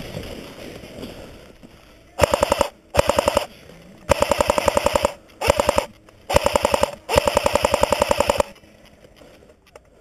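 Cyma AK74M electric airsoft rifle firing full-auto: six short bursts of rapid, evenly spaced shots over about six seconds, starting about two seconds in. A little rustling of movement comes before the first burst.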